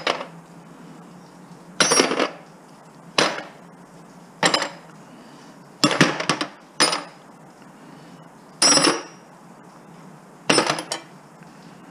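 Pieces of brass door hardware clanking as they are tossed down one at a time onto other metal scrap. There are about seven separate clanks a second or two apart, each with a short metallic ring.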